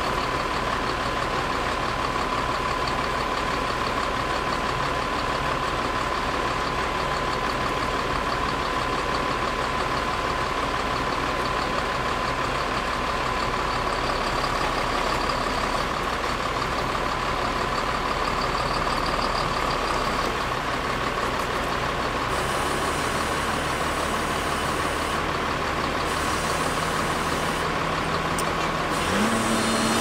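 Heavy-equipment diesel engines, an excavator and a Mack dump truck, running steadily with a steady high whine over them. About a second before the end a lower steady hum comes in and the sound gets slightly louder.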